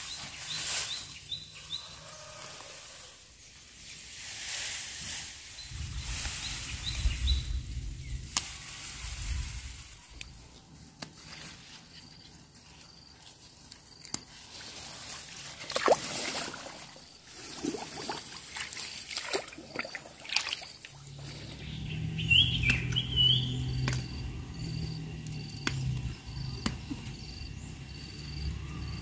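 Hand-picking plants in a flooded rice paddy: rice leaves and stalks rustling in repeated sudden bursts as they are pushed aside, with small splashes and sloshes of muddy paddy water as the plants are pulled up.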